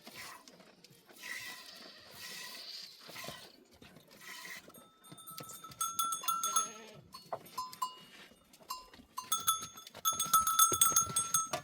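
A flock of sheep and goats with bells on their necks: some bleating in the first few seconds, then the bells clink and jangle over and over as the animals move, loudest near the end.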